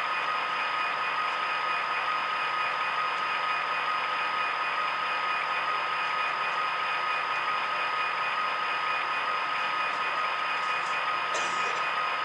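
Sound decoder in an HO-scale Great Northern F45 model locomotive playing its diesel engine at idle through the model's small speaker: a steady hissy running sound with a constant high whine. A faint click near the end.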